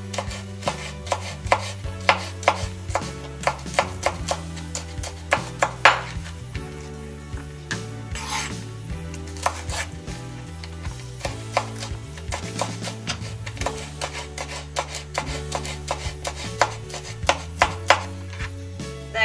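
Chef's knife dicing a red bell pepper on a wooden cutting board: irregular sharp knocks of the blade striking the board, with a short pause around the middle.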